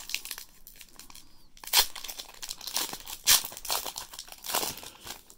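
Foil wrapper of a Magic: The Gathering Ikoria booster pack crinkling and tearing as it is ripped open by hand, in irregular crackles with a couple of sharper, louder rips partway through.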